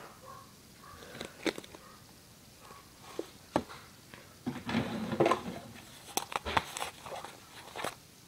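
Close handling sounds as a glue mixture in a small plastic cup is worked with a wooden craft stick: scattered clicks and knocks, with a denser scraping, squishing stretch about halfway through.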